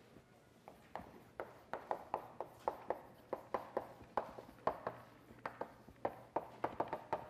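Chalk tapping on a blackboard while words are written: an irregular run of short sharp clicks, about four a second, starting about a second in.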